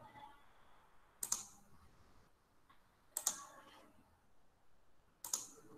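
Three sharp clicks about two seconds apart, each a quick double snap with a short tail, from someone working a computer.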